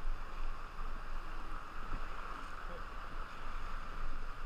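River water rushing steadily around a whitewater raft, with a constant low rumble underneath.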